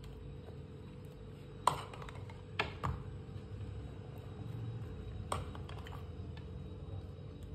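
A table knife spreading pizza sauce on toasted pav bread, clicking lightly four times against the sauce jar and ceramic plate, over a faint steady hum.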